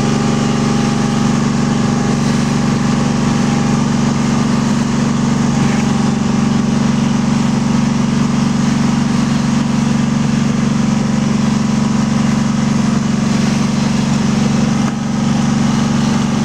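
Bee vacuum running steadily, its hose nozzle sucking up honeybees from the comb: a steady low hum.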